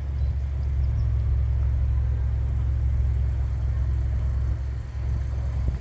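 Wind buffeting the phone's microphone: a steady, loud low rumble with little else above it.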